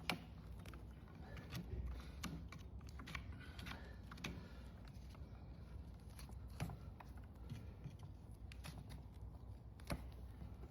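Faint, irregular clicks and short scraping sounds of hoof-trimming work on a horse's hoof, with a few sharper clicks about a second in, around the middle and near the end.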